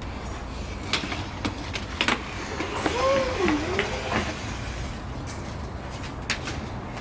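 Small wooden folding chair knocking and scraping on a stone floor as a toddler pushes it, a few separate knocks spread through, with a short rising-and-falling child's vocal sound near the middle, over a steady low hum.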